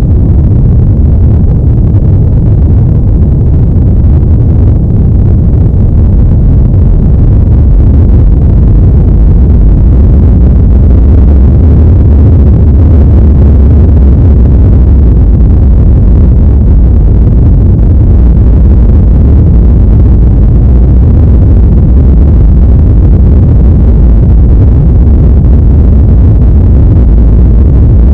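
Earthquake sound effect: a loud, steady deep rumble without breaks.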